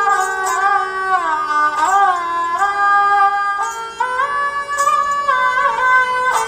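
Background music: a melodic line on a bowed string instrument or voice that glides between notes over a steady drone, with a few sharp plucked or percussive strokes.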